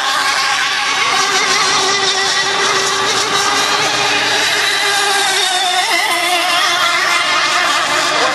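Twin-engine racing hydroplanes running flat out, a steady engine whine whose pitch wavers up and down as the boats run the course.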